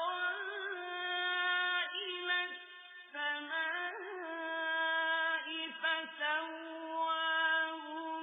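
A male reciter chanting the Quran in a melodic, drawn-out style, holding long high notes with slight turns in pitch and a brief pause about three seconds in.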